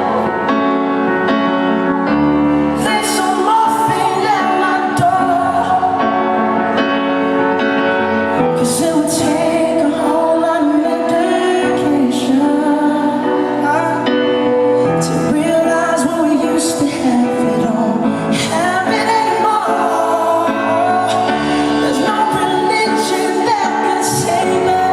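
Live pop ballad performance: a male singer's voice over band accompaniment, the sung line wavering and held on long notes.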